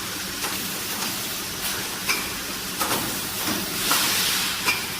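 Automatic servo-driven screen printing machine running: a steady hiss with sharp mechanical clicks and clacks several times at uneven intervals, and a swell of louder hiss a little past halfway.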